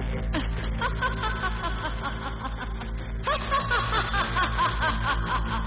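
A woman cackling with rapid, repeated bursts of laughter in two bouts, the second louder, over a low, steady music drone: the evil laugh of a sorceress.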